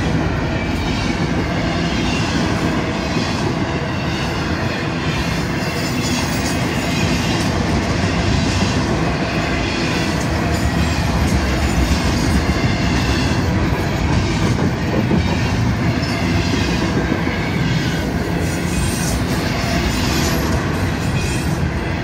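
Intermodal freight cars of a Florida East Coast Railway train rolling steadily past: a continuous rumble of steel wheels on rail, broken by repeated wheel clicks.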